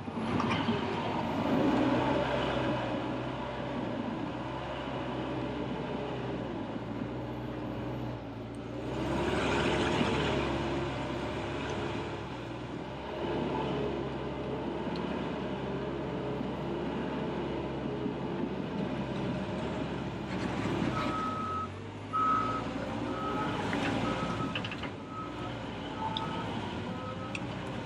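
Cat D6K2 LGP crawler dozer's diesel engine running under load, its pitch rising and falling as the machine works. About two-thirds of the way through, its backup alarm starts beeping steadily as the dozer reverses.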